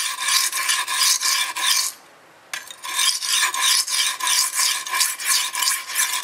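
Stainless steel kitchen knife blade scraped rapidly back and forth across a coarse aluminium oxide whetstone: a fast run of rasping strokes that pauses for about half a second around two seconds in, then resumes.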